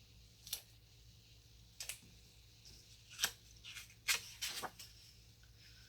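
Paper pages of a sticker book being flipped and handled: a scattering of short, crisp rustles and flicks, with a cluster of them about four seconds in.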